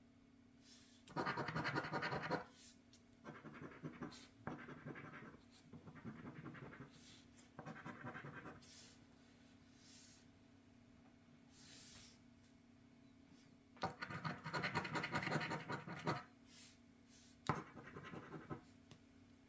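Scratch-off lottery ticket being scratched, its latex coating scraped away in short bursts of rapid scraping with pauses between them; the longest and loudest bursts come about a second in and again past the middle.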